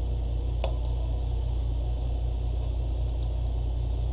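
Steady low electrical hum on the recording, with a computer mouse clicking twice, about half a second in and again about three seconds in, each time a quick press-and-release pair.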